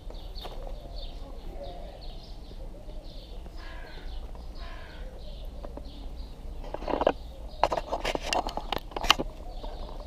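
A small bird chirping over and over, about three short calls a second. A burst of loud sharp clacks and taps comes about seven to nine seconds in.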